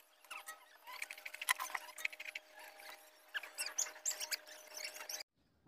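Faint clicks and taps of wires being handled at a transformer's terminals, with a few short high squeaks among them.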